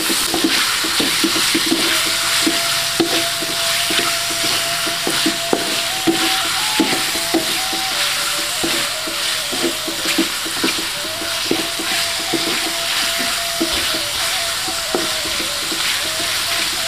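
Chicken and shrimp sizzling in oil and chili paste in a metal wok, with a wooden spatula scraping and knocking against the pan in quick irregular strokes as it is stirred.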